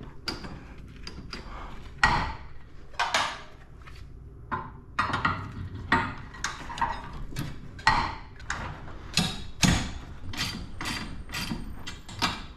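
Sectional garage door hardware knocking and clacking as the door travels, the knocks coming faster, about three a second, in the second half.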